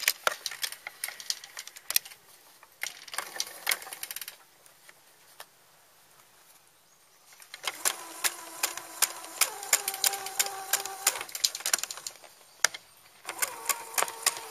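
Electric household sewing machine stitching in four short runs, its needle clicking rapidly over a motor whine, stopping and starting again, with a pause of about three seconds in the middle. It is sewing a seam through a thick, stuffed cloth doll body.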